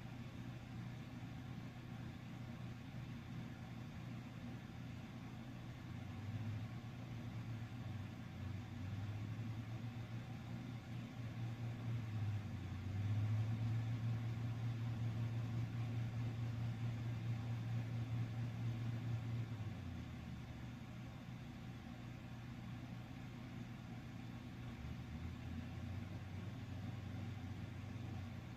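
A low, steady mechanical hum that swells about six seconds in, is loudest from about thirteen to twenty seconds, then settles back to a quieter drone.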